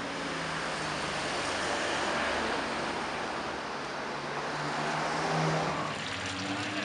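Car engines running at low speed in slow street traffic: a steady low engine note over road noise, swelling slightly about five seconds in.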